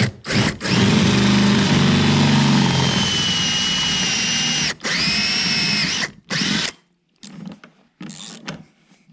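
Power drill working into the boat's bow deck while the trolling motor mount is fastened. It gives a short blip, then runs steadily with a whine for about four seconds, stops briefly, runs again for about a second and gives one last short burst. Quieter clicks and knocks follow.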